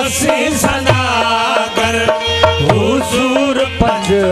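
Live Sindhi folk music: a hand drum keeping a steady beat under a melody line that glides up and down.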